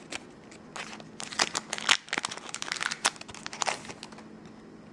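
Foil trading-card booster pack crinkling as it is torn open and handled, a quick flurry of crisp crackles lasting about three seconds that dies away near the end.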